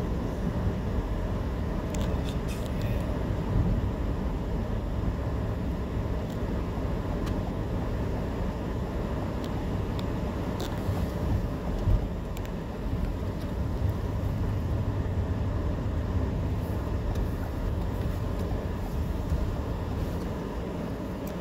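Steady low rumble of a car's tyres and engine on the road, heard from inside the cabin, with a few faint ticks.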